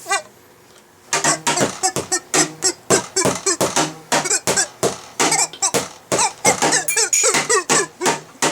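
Squeaky back scratcher squeaked over and over in quick succession, short squeaks bending in pitch, with sharp clicks among them. It starts about a second in, after a brief quiet.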